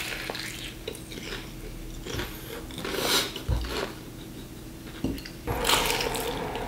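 Crunching bites and chewing into a crisp-crusted fried chicken drumstick, in a few short bursts, the loudest near the end.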